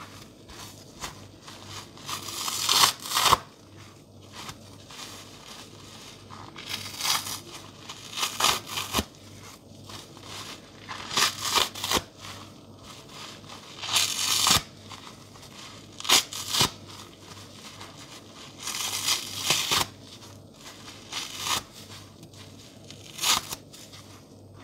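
Soap-soaked sponge ripped apart by hand: about ten short, crackly tearing rips, spaced a second or two apart, as it is pulled into chunks.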